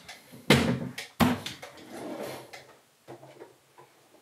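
Two sharp knocks of kitchen units being shut, about half a second and just over a second in, followed by quieter handling and rummaging at the counter.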